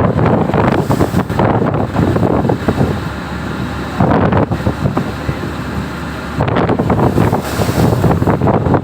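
Strong wind buffeting the microphone in gusts, with waves washing around an anchored ship; the gusts ease twice and then surge again.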